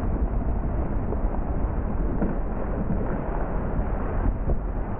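Diesel engine of a John Deere tracked feller buncher running steadily and loud as the machine's disc saw head pushes a cut tree over; the tree is falling by about four seconds in.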